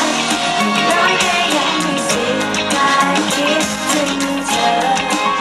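Live pop song played by a band, female voices singing over electric bass and drums, with a steady beat.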